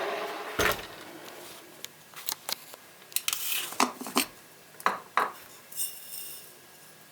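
Small hard objects handled: a low knock about half a second in, then a quick run of about a dozen sharp clicks and clinks, and a faint high jingle near the end.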